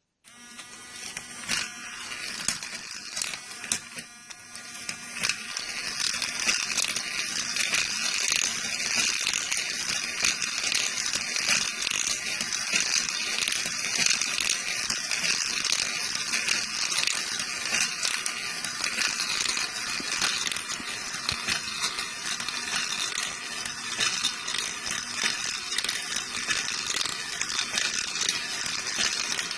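3D-printed marble machine running: a small motor drives the eccentric-and-slider marble pump, and marbles clatter and click as they are lifted and roll down the spiral track. It starts suddenly and grows louder over the first few seconds, then runs steadily.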